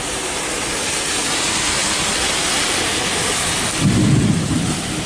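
Heavy rain falling, a steady dense hiss, with a brief low rumble about four seconds in.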